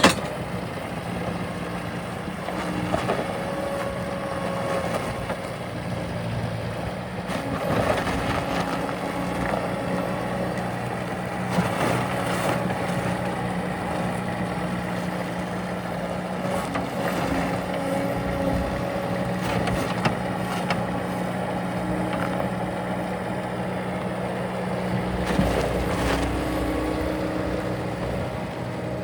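2003 Bobcat S185 skid steer loader's diesel engine running steadily, with occasional clanks and knocks, and a heavier low rumble about twenty-five seconds in.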